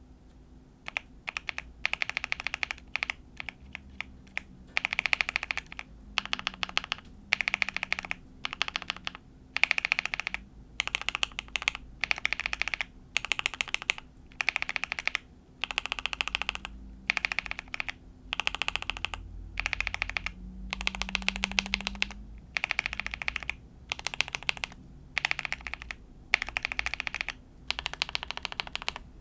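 Mechanical keyboard with linear switches and a PE-foam and tape mod being typed on in short rapid bursts of keystrokes, with brief pauses between bursts. The presses have a poppy sound.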